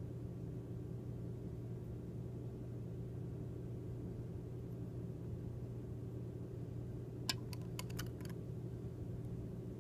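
Steady low mechanical hum, with a quick run of several light clicks about seven seconds in.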